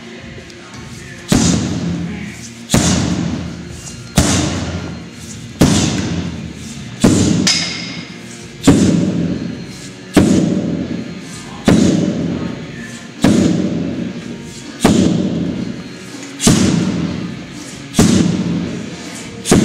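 Sledgehammer striking a large tractor tire: thirteen heavy thuds at an even pace, about one every one and a half seconds, starting about a second in, each dying away briefly.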